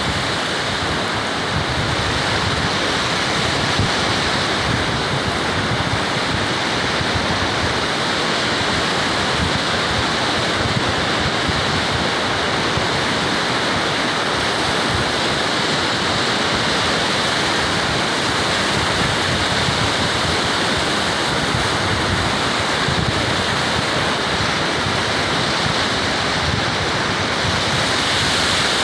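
Ocean surf and wind: a steady rush of noise, with wind buffeting the microphone in uneven low rumbles.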